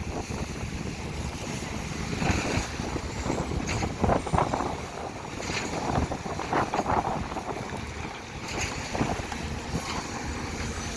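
Excavator diesel engines running at work, with wind buffeting the microphone. Short, sharper sounds come every couple of seconds.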